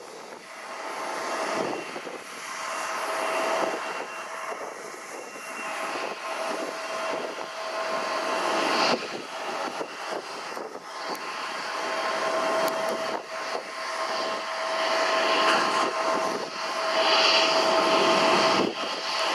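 Jet aircraft engines running at an airport, heard at a distance: a steady whine over a broad rushing noise that grows gradually louder.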